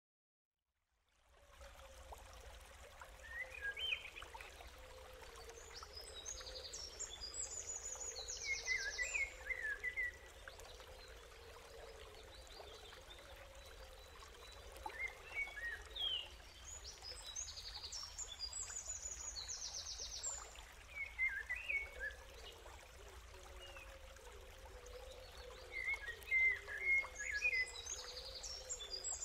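Nature ambience starting about a second in: a steady trickle of running water with birds chirping in short, quick phrases over it. The same bird phrases come back about every ten seconds, as in a looped recording.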